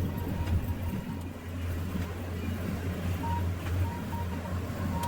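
Bobcat T650 compact track loader's diesel engine running steadily with a low hum, with faint short high beeps in the second half.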